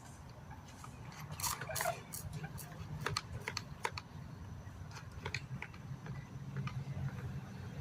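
Irregular sharp clicks and taps, a dozen or so spread unevenly, over a steady low hum.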